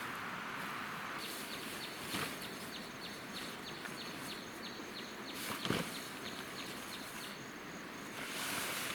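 Stream water running steadily. Over it, a bird repeats short, falling chirps about three times a second for several seconds. A couple of soft knocks come through as well.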